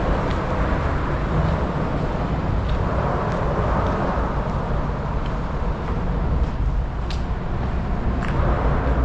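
Highway traffic on Route 61 rushing by, a steady noisy rumble that swells as vehicles pass, about four seconds in and again near the end.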